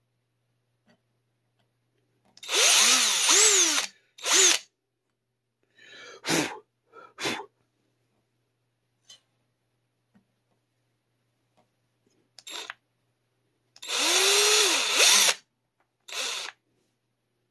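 Handheld power drill boring the pilot holes for string tree screws in a Telecaster headstock, run in bursts on the trigger: two longer runs of about a second and a half, each whirring up in pitch and falling away, with several brief blips between them.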